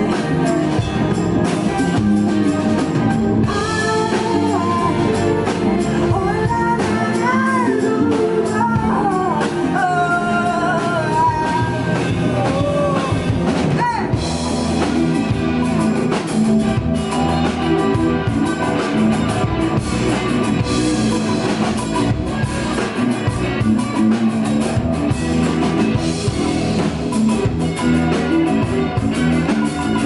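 Live indie rock band playing: a woman singing over electric guitars, bass and a drum kit. The vocal stops about halfway through and the band carries on with guitars and drums.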